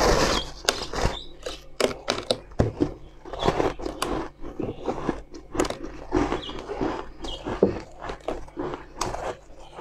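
Crunching and chewing of a block of powdery, snow-like ice: a loud crunching bite at the start, then a run of sharp, irregular crackles as the mouthful is chewed.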